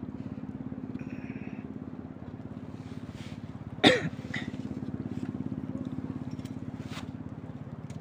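A steady low engine drone with a rapid, even pulse, and a sudden loud thump about four seconds in, followed by a few fainter knocks.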